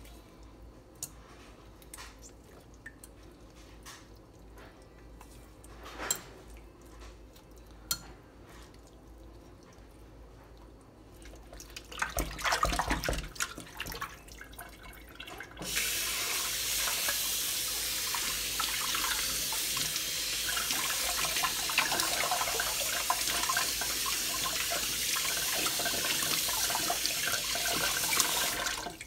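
Hands work a raw whole chicken in a bowl of water, with a few small clicks and splashes. About fifteen seconds in, the kitchen faucet comes on and runs steadily into the stainless steel sink as the chicken is rinsed under the stream.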